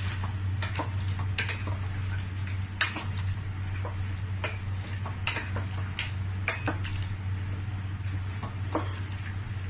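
A spoon stirring in a cooking pot, clinking and scraping against it in irregular knocks, over a steady low hum.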